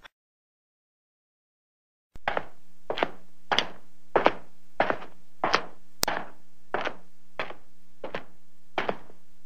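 Footsteps in high-heeled shoes, the heels tapping on the floor at a steady walk of about one and a half steps a second. They start about two seconds in, after silence, over a faint steady hum.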